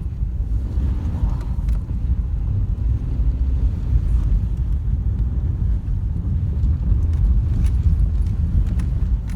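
Steady low rumble of a car driving, its engine and tyre noise.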